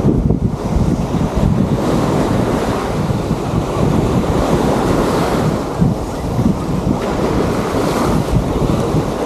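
Wind buffeting the microphone in a loud, steady rumble, over surf washing on the beach, with a couple of brief brighter washes about halfway through and near the end.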